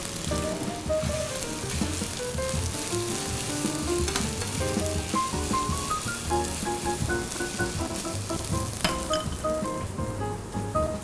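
Soaked glass noodles and shrimp sizzling as they fry in a hot pan, with background music playing a melody of short notes over it.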